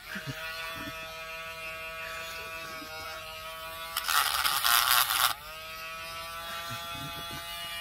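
Handheld electric gel-nail drill running with a steady whine, spinning up just after the start. About four seconds in, its bit grinds against the edge of a cured resin piece for just over a second with a loud, hissy rasp, and the whine dips and climbs back as the bit comes off.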